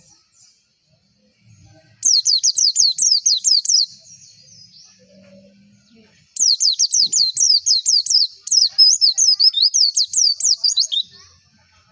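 Pleci (white-eye, Zosterops) song: two runs of quick, high, sweeping chirps, about five a second. The first starts about two seconds in and is short; the second starts about six seconds in and lasts about four and a half seconds.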